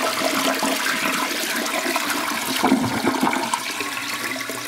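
Sound effect of rushing, gurgling water, like a flush, loud and steady, easing off near the end.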